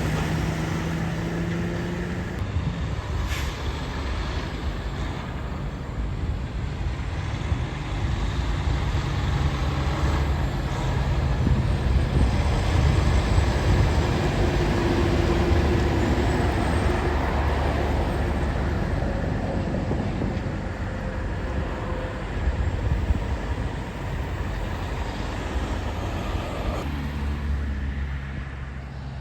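Diesel semi-truck engines running with road traffic noise, swelling in the middle as trucks go by. A short sharp click comes about three seconds in.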